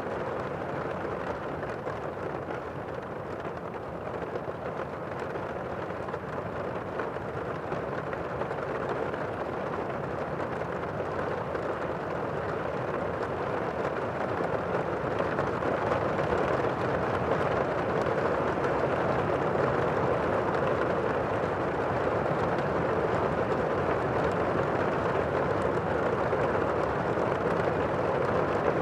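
Steady rain, a dense even hiss with no separate drops or thunder standing out, growing gradually louder around the middle.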